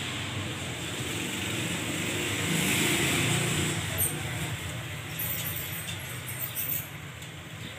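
Steady background noise of road traffic, swelling about three seconds in, with a few light clicks and rattles later.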